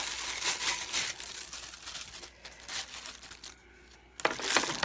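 Plastic packaging crinkling and rustling in irregular bursts as accessories are pulled out of their bags, with a louder burst of rustling near the end.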